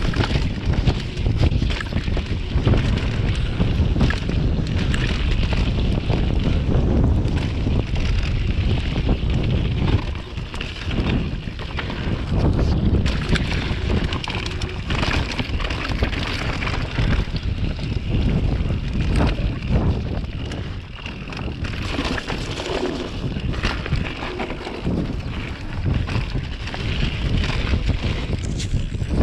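Mountain bike riding fast down a muddy dirt trail: wind rushing over the microphone, tyres rolling over wet dirt, and the bike rattling over bumps.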